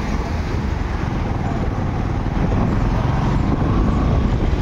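Steady street riding noise: vehicle engines running and a heavy low rumble from the moving ride, getting a little louder about halfway through.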